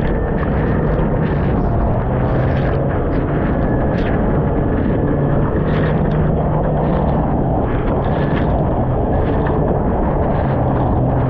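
Outboard motor of a Stabicraft 15.5 boat running steadily under way, a constant low hum under a rush of wind and water as the hull crosses rough chop.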